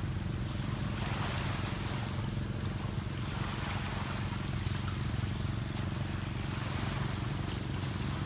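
Seashore ambience: gentle waves lapping under a steady wind, with a continuous low rumble.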